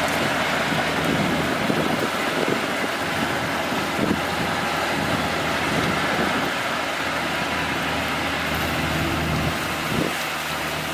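Kubota DC-35 rice combine harvester running steadily while harvesting: a continuous diesel-engine hum under an even mechanical noise.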